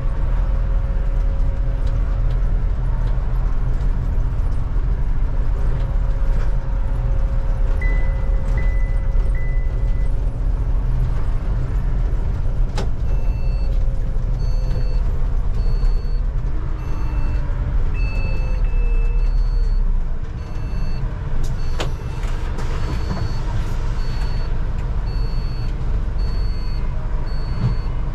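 A bus's engine and drivetrain running as it drives and then slows to a stop, its whine falling as it slows. From about halfway a high electronic beep repeats roughly once a second, and a sharp click follows shortly after the bus stops.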